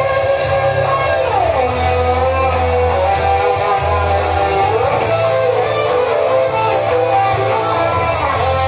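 Karaoke backing track playing an instrumental passage with no voice: guitar to the fore over a steady bass, with a few sliding notes.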